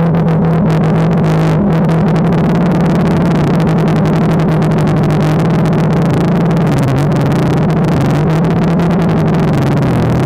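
DJI Phantom 2 quadcopter's motors and propellers buzzing in flight, loud and steady. The pitch dips slightly about seven seconds in as the motor speed changes.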